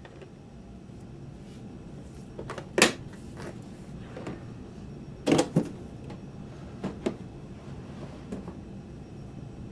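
Hard plastic Black & Decker bit case handled and snapped shut. A loud clack comes about three seconds in, then a pair of clicks a little after five seconds, two more around seven seconds, and a few lighter knocks.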